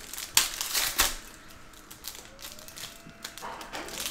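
Foil wrapper of an Upper Deck Allure hockey card pack being crinkled and torn open, with two sharp rips about half a second and a second in, then softer crinkling of the foil.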